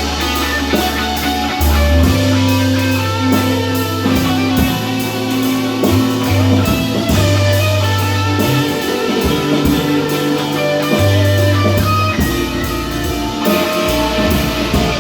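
Rock-style music with guitar, a bass line moving between held low notes, and drums keeping a steady beat.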